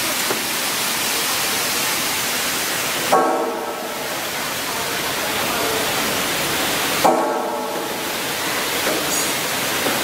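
Steady rushing noise of a vegetable washing line running, its spray water hissing. Twice, about three and seven seconds in, a short pitched blip cuts in and the hiss briefly dips.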